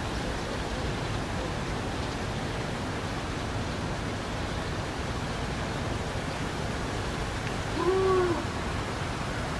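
Steady outdoor background hiss, with one short hoot-like animal call about eight seconds in that rises and then falls.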